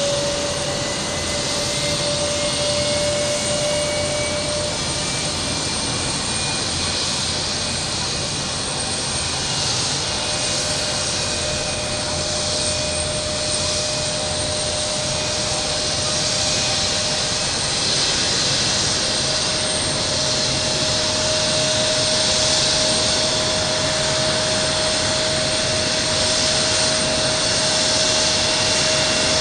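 Turbofan engines of a Fuji Dream Airlines Embraer regional jet taxiing at low power: a steady jet whine and hiss with a held tone that edges slightly up in pitch, growing a little louder in the second half.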